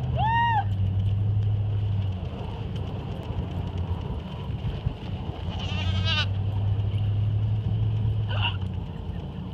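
Goats bleating: a short arching call just after the start, a longer wavering bleat about six seconds in and a brief call near the end, over a low steady hum.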